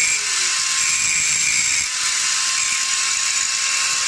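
Angle grinder with a thin cutting disc grinding the steel links of a chainsaw chain, cutting down the chain's blocks to sharpen it. The motor holds a steady high whine while the grinding hiss swells and eases several times as the disc is worked along the chain.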